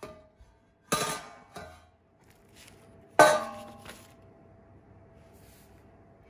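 Metal baking pan clanking against a metal trivet and utensils: three sharp knocks about a second apart, the loudest about three seconds in, each leaving a faint ring.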